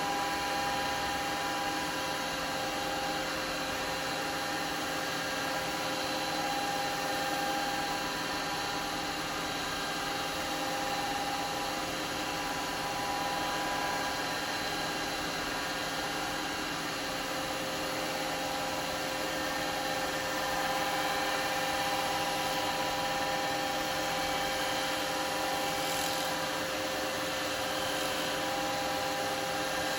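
Wood lathe running steadily with a bowl spinning on it, a constant hum with several fixed tones, while wax is buffed onto the turned surface.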